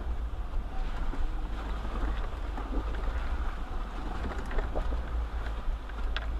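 Off-road 4x4 crawling a rough mountain trail in four-low, with a steady low engine and drivetrain rumble, scattered clicks and knocks from the tyres and chassis on rock, and wind buffeting the microphone.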